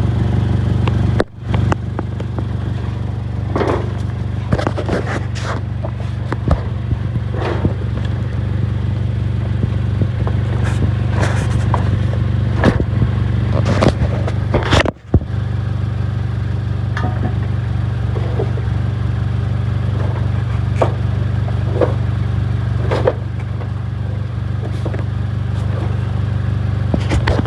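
2006 Honda Accord's 2.4-litre inline-four idling steadily, heard close to an exhaust that leaks at two bad welds, with irregular scrapes and clicks over the idle. The sound drops out briefly twice, about a second in and about halfway through.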